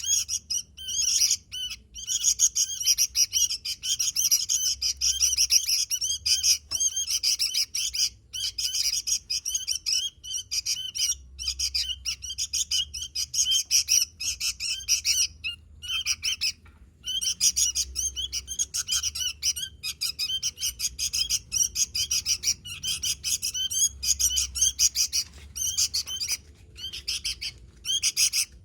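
Sooty-headed bulbul (kutilang) singing in full, vigorous song: a dense stream of rapid chirps and twittering notes with only brief pauses.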